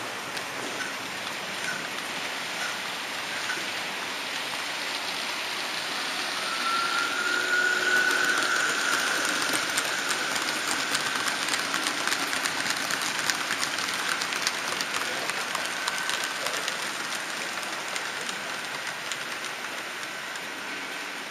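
Model train rolling along the track: a steady hiss of small wheels on the rails, dotted with many light clicks. About six seconds in, the sound swells and a thin model-locomotive motor whine joins, rising slightly in pitch before fading out near the end.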